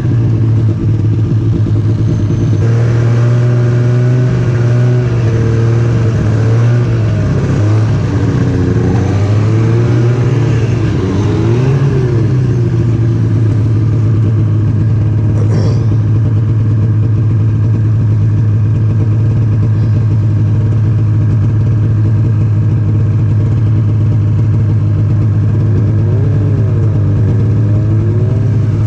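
Snowmobile engine running with a steady, loud drone, its pitch wavering up and down in places.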